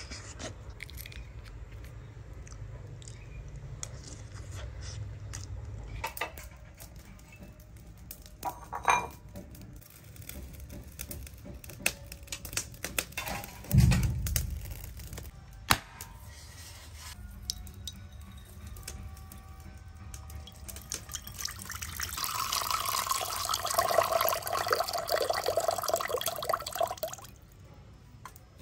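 Kitchen handling sounds with water: scattered knocks and clicks, one heavy thump about halfway through, then water running for about five seconds near the end.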